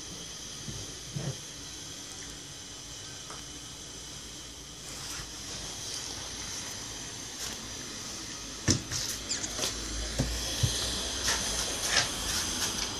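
Light knocks and taps from a baby handling a plastic feeding bottle and patting the top of a wooden chest of drawers, over a steady faint hiss. The knocks are scattered at first and come thick and quick near the end.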